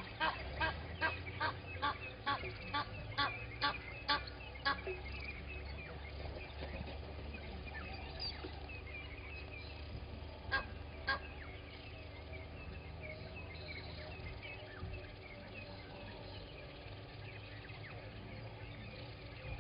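A bird honking in a rapid series of harsh calls, about three a second, stopping about five seconds in, with two more honks around ten seconds in. Smaller birds chirp faintly throughout.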